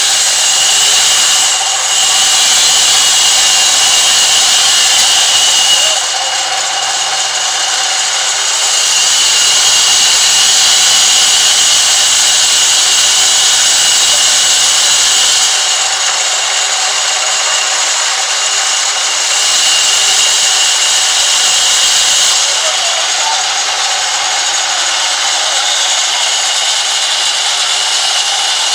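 Sawmill band saw ripping lengthwise through a large log as it is pushed along the table by hand: a steady high whine over a rushing cutting noise that grows louder and eases off several times.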